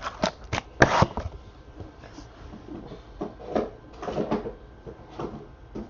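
Scattered clicks, taps and light rustling of trading cards being handled and set down on a table, the sharpest tap about a second in.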